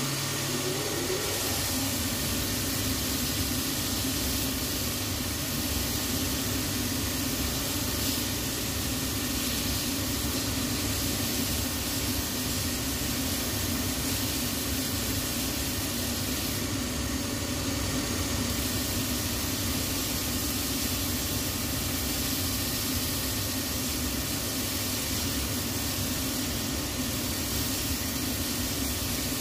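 Cobbler's finishing machine running steadily, a hum under a loud rushing whir, as the leather heel of a resoled shoe is pressed to its spinning wheel to set the heel's pitch.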